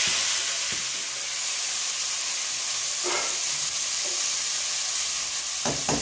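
Shredded spiced chicken frying in hot oil in a pot, sizzling steadily. Near the end come a few light knocks as a spoon stirs against the pot.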